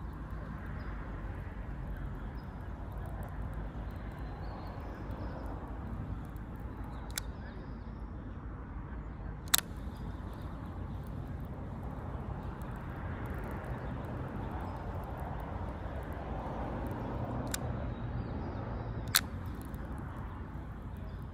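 Steady outdoor background noise with a faint low hum underneath, broken by four short sharp clicks spread through it.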